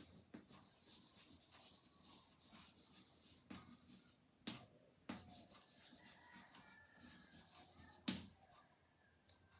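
Chalk tapping and scraping on a blackboard as a line is written: a few sharp taps, the loudest about eight seconds in. Underneath is a steady high, hissing drone like insects.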